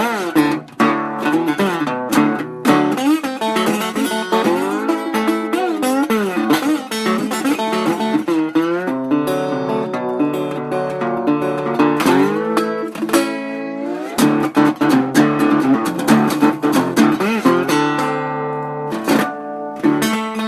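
Acoustic slide guitar playing a blues passage without vocals, its notes sliding up and down in pitch.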